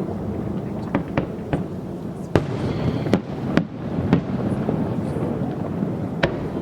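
Fireworks display: about eight sharp bangs at irregular intervals, over steady background noise.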